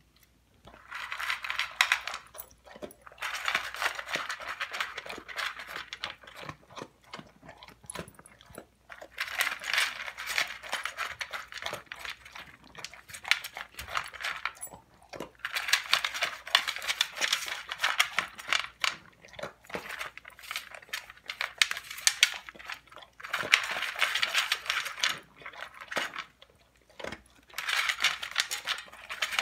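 A dog eating dry kibble from a bowl: quick crunching and clattering of kibble, in stretches of a few seconds separated by brief pauses.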